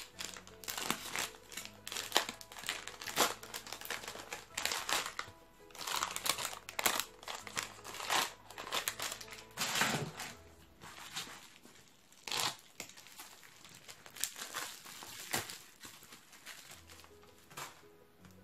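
Plastic mailer bag and bubble wrap crinkling and rustling in irregular bursts as a package is unwrapped by hand, over soft background music.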